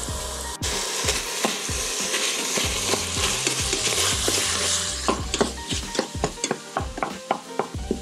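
Ground beef and sausage sizzling as they brown on the sear setting, while a masher tool stirs and scrapes them around a stainless steel pot. From about five seconds in, the tool clicks and scrapes against the pot in quick, frequent strokes.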